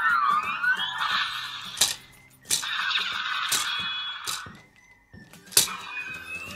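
Hasbro Allspark Tech Optimus Prime toy playing its motion-triggered electronic sound effects through its small speaker: sweeping, warbling synthesized tones in three spells with short gaps between them, and a few sharp clicks.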